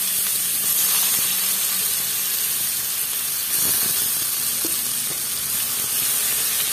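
Chopped onion frying in hot oil with cumin, a dried red chilli and a bay leaf in a steel kadai: a steady sizzle.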